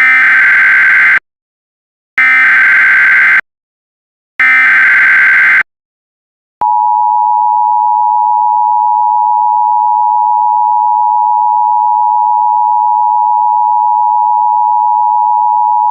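Emergency Alert System opening: three bursts of SAME header data tones, each a little over a second long with about a second of silence between them, then the steady two-tone EAS attention signal starting about six and a half seconds in.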